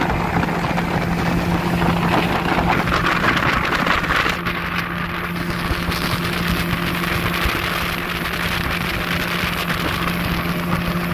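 Outboard motor of a small open boat running steadily at cruising speed, a constant low engine tone under the rush of water and wind. The hiss of spray and wind eases a little about four seconds in.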